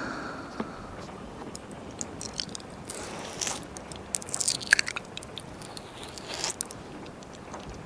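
Ear-licking mouth sounds into a 3Dio binaural microphone: wet tongue licks, lip smacks and crackly clicks in irregular bursts, the loudest a little before five seconds in.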